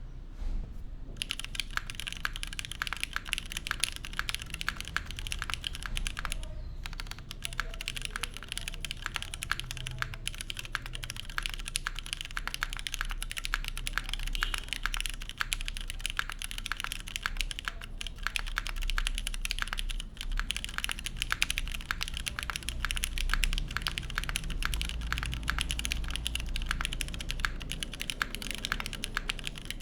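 Fast continuous typing on a mechanical keyboard with lubed Cherry Hyperglide Black linear switches in an aluminium plate, top mount: a dense run of key strokes that starts about a second in, with a brief pause about six seconds in.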